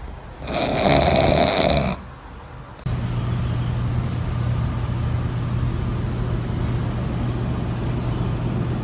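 A pug snores loudly once for about a second and a half. After a cut, a steady low hum runs over a background of noise.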